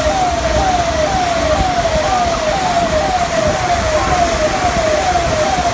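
Emergency vehicle siren sounding a repeating falling whoop, about two sweeps a second, over a steady rushing noise.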